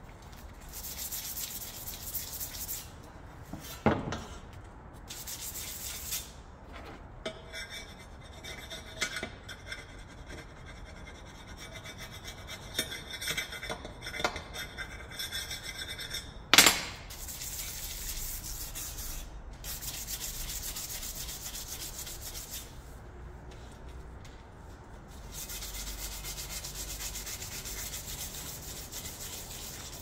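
Hand file rasping along a chainsaw chain's cutters while it is sharpened, in repeated scraping strokes, with a sharp knock about four seconds in and a louder one just past the middle.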